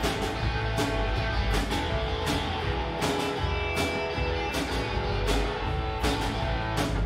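Live rock band playing: strummed guitars over a steady drum beat.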